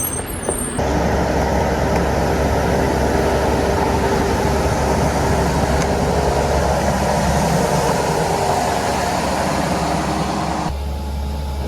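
Heavy diesel engine of earthmoving machinery running steadily under load. It gets louder about a second in and drops back near the end.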